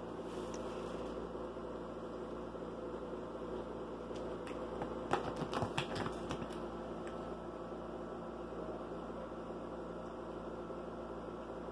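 Steady low room hum, with a quick run of small clicks and scratches between about four and seven seconds in: a kitten's claws catching on a fabric suitcase as it climbs up the front.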